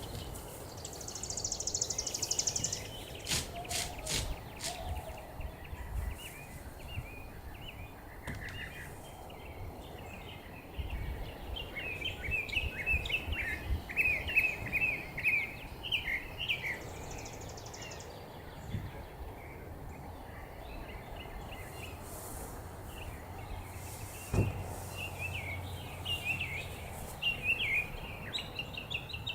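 Songbirds singing in bursts of quick, high chirping phrases over a low wind rumble, with a few sharp knocks in the first few seconds.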